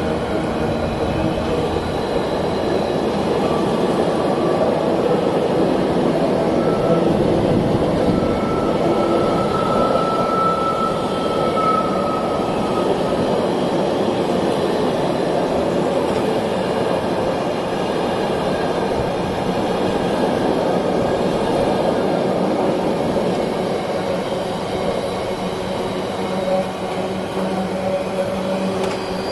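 Empty intermodal container flat wagons of a freight train rolling past: a steady rumble of wheels on rail. A faint high tone comes through for a few seconds around ten seconds in.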